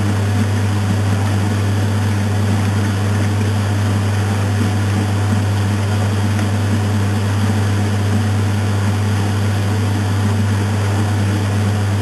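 2002 Maytag Atlantis top-loading washing machine agitating a load in water: a steady motor and transmission hum with the churn of water and clothes.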